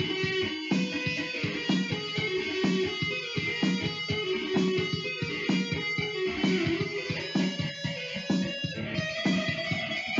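Electric guitar playing an instrumental passage of a rock song, picked notes over a steady beat of about two strokes a second.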